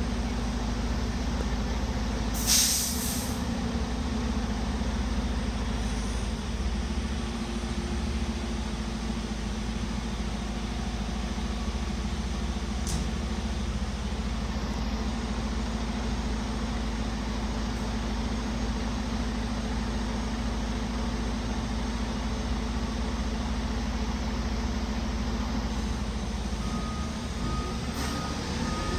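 Fire engine's diesel engine idling steadily with a low hum, and a short loud hiss of air brakes about two and a half seconds in.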